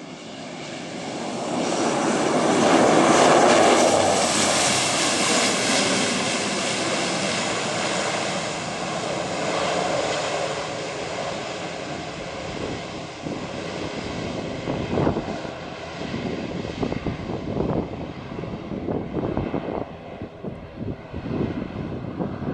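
ATR 42 twin turboprop's engines and propellers running as the aircraft rolls along the runway. The sound swells to its loudest a few seconds in, then slowly fades as the plane moves away, turning gustier and more uneven in the second half.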